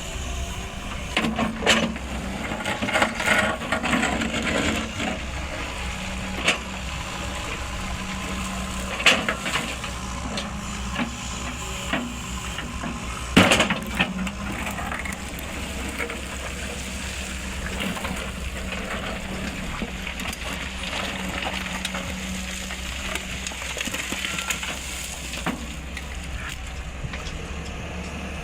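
Sany SY210 hydraulic excavator's diesel engine running steadily, with scattered knocks and cracking on top, the loudest a sharp crack about 13 seconds in.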